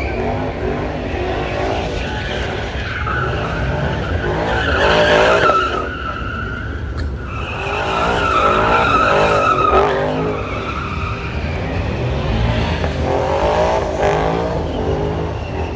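A car's engine revving hard, rising and falling, while its tires screech, as in a burnout or donuts. The screech swells twice, about five seconds in and again around eight to ten seconds.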